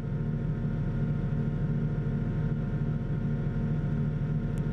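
Rotax 912-series flat-four engine and propeller of a TL-3000 Sirius light aircraft running steadily at climb power, a low, evenly pulsing drone.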